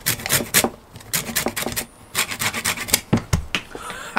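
Lemon being zested on a handheld stainless steel grater: a run of quick, irregular scraping strokes, several a second.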